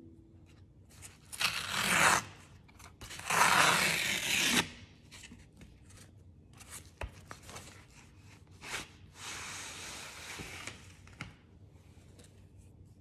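A USPS Priority Mail envelope being torn open in two loud rips, followed by paper rustling and scraping as magazines and cardboard backing are slid out of it.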